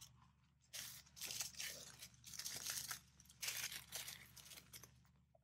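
Small plastic zip bags of diamond-painting drills crinkling and rustling faintly in the hands as they are shuffled and sorted, in several bursts that die away near the end.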